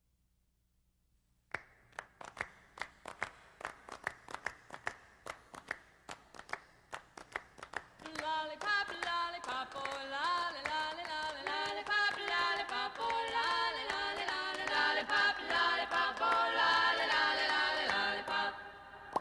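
Background music: after a second and a half of near silence, a steady clapping beat starts, and about halfway through a cappella singing voices come in over it.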